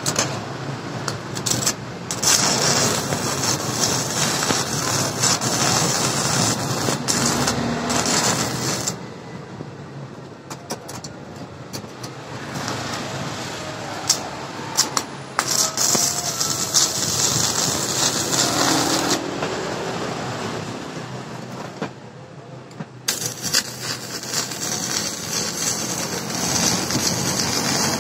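Stick (MMA) welding arc crackling and hissing as an electrode is burned onto steel, in several runs with quieter breaks around ten and twenty-one seconds in.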